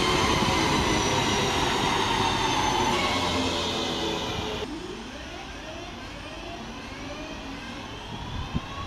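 A London Midland electric multiple unit running past and away, a loud rush of wheels on rail with high whining tones that fall slightly as it goes. About halfway through this cuts to a quieter Class 323 electric train coming into the platform, its traction motors whining in several rising tones, with a single knock near the end.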